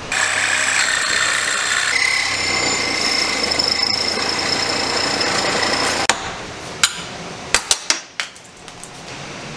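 A power tool cutting steel square tubing runs steadily for about six seconds, its tone shifting about two seconds in. It then stops, and several sharp metal knocks follow.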